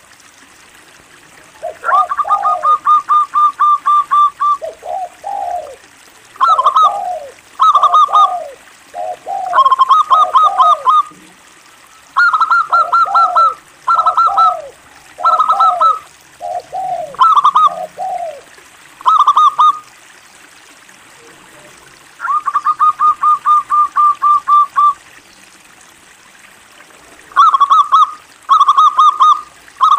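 Zebra dove (perkutut) cooing in repeated staccato phrases, with quick rattling runs of even notes about two seconds in and again past the twenty-second mark, and short pauses between phrases.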